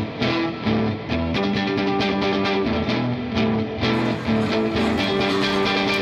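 Instrumental guitar music with a steady rhythm: plucked notes repeating over held chords.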